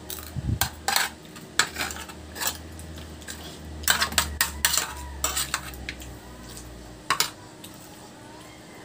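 Spoon and fork clinking and scraping on stainless steel divided plates while eating, in irregular clinks with a busier cluster around four to five seconds in.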